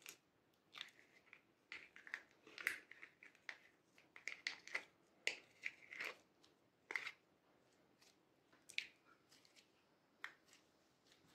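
Purple jelly slime being worked out of a soft clear plastic heart-shaped mould and squeezed by hand: a quick run of sticky clicks and small wet pops, thick for the first several seconds and sparser toward the end.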